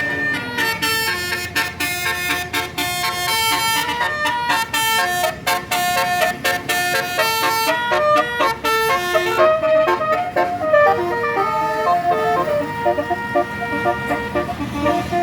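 Telolet Basuri multi-tone bus horn playing a tune: several horn notes sound together and step quickly from chord to chord, with sharp clicks between the changes. Near the middle the tune slows to longer-held notes.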